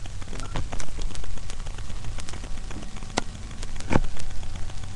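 Crackling, rustling handling noise from a webcam being carried around, with scattered clicks and two sharper knocks about three and four seconds in, over a low rumble.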